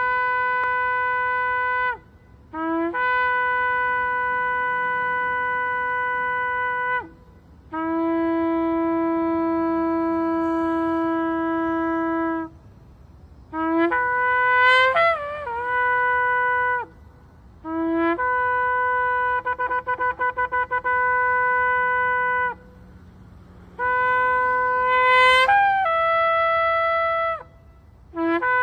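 A long spiralled shofar blown in a series of about six long held blasts, each a few seconds long with short breaths between. Several blasts start on a brief lower note and step up, two break upward into higher, wavering notes, and one has a rapid flutter.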